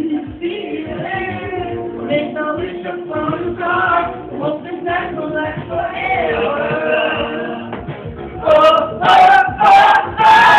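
Music with singing voices. Near the end, louder bursts of voices close by come in over it.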